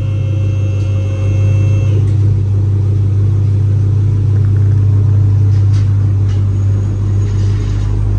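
Dodge Charger Hellcat's supercharged 6.2-litre HEMI V8 idling with a steady low rumble. Its exhaust leak has just been repaired, so it sounds like a normal car again rather than like a motorcycle.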